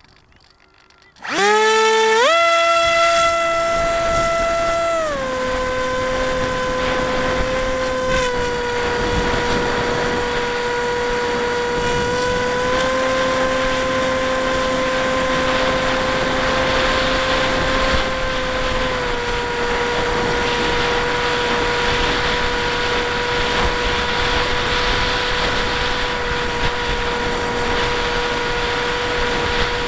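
Bixler 1's brushless electric motor and pusher propeller whining: it spins up quickly to full throttle about a second in, then settles to a steady lower cruising pitch after a few seconds, with small throttle changes up and down later. A steady rush of wind over the airframe runs underneath.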